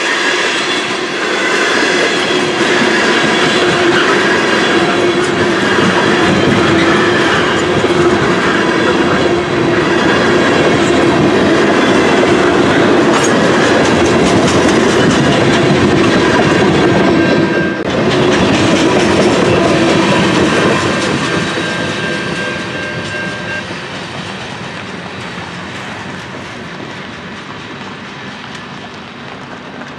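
Loaded freight train of tank cars and covered hoppers rolling past at about 25 mph, wheels clicking over the rail joints with a steady squeal from the wheels. A little after two-thirds of the way through, the sound starts to fade as the end of the train moves away.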